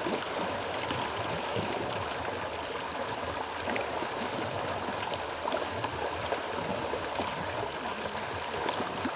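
Water rushing along a narrow concrete channel and spilling over a small step, a steady rush with light gurgling.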